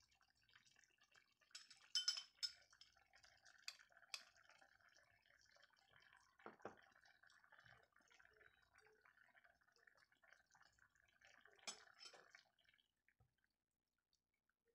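Pot of apples simmering faintly on the stove, with a few sharp clinks of kitchenware against the pot, the loudest about two seconds in and another near the end.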